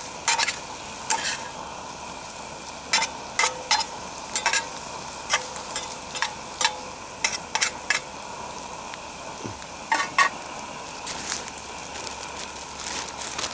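Metal spatula scraping and tapping against a skillet, turning eggs frying over a small camp stove, over a steady sizzle. The strokes come in quick runs for the first eight seconds or so, then a pair about ten seconds in, after which only the sizzle goes on.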